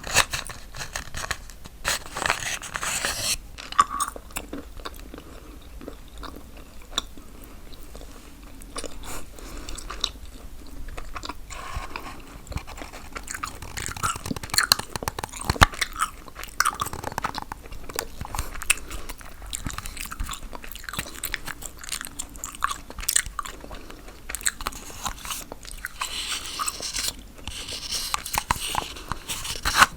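Gum chewing right at the microphone: a steady run of short, sharp mouth clicks and smacks, with a few longer hissy stretches.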